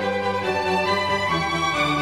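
Background music of bowed strings holding long notes; the lower notes step down about two-thirds of the way through.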